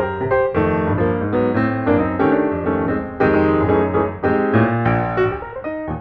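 Background piano music: quick runs of notes over chords and a bass line.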